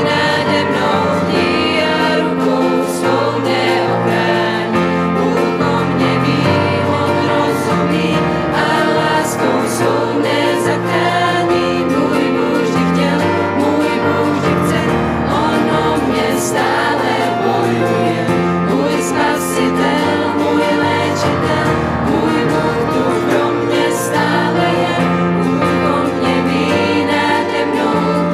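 Mixed youth choir singing a Christian song in Czech, backed by keyboard and acoustic guitar, with sustained bass notes moving under the voices.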